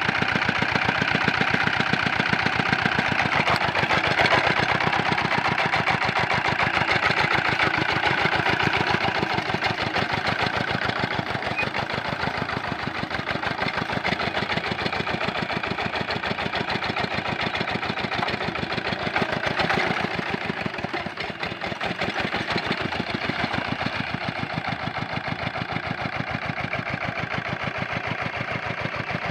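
Diesel engine of a paddy-field hand tractor running steadily with a rapid, even chugging beat, a little quieter after about twenty seconds.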